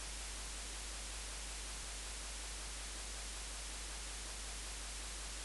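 Steady background hiss with a low hum underneath and nothing else: the recording's noise floor during a pause in the narration.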